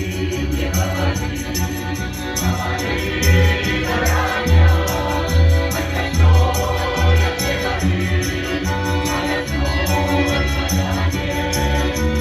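Folk choir singing a song over instrumental accompaniment with a steady bass beat and light percussion.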